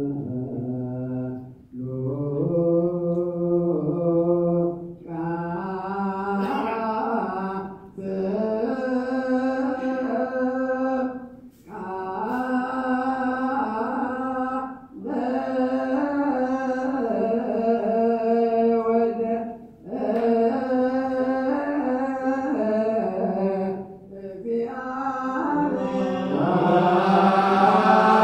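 Ethiopian Orthodox liturgical chanting: long, slow sung phrases on held, gently bending notes, with short pauses for breath every few seconds. Near the end a hissing noise builds under the chant and it grows louder.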